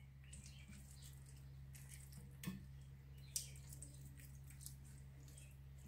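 Faint wet squishing of hands rubbing a ground-spice and grated-ginger marinade into raw meat on a plate, with two small clicks near the middle and a steady low hum underneath.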